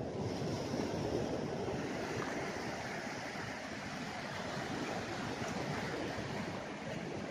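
Steady wash of small ocean waves breaking and running up a flat sandy beach, with some wind.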